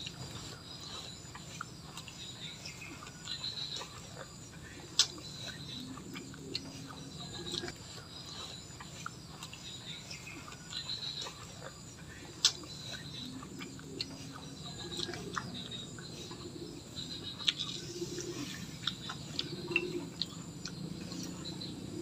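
Close-up eating sounds of a person chewing and picking apart fried smashed pigeon with her fingers: wet mouth and finger sounds, with sharp clicks and snaps now and then as the small bones and crisp skin are bitten and pulled.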